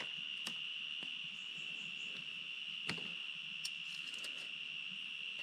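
A steady, high-pitched insect chorus, a continuous trill, with a few faint sharp clicks of handling in between.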